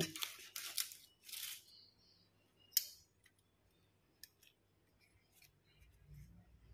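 Metal kitchen tongs peeling charred turmeric leaves off grilled fish: a few short, dry crackling rustles in the first second and a half, a sharp click a little before halfway, then faint light ticks.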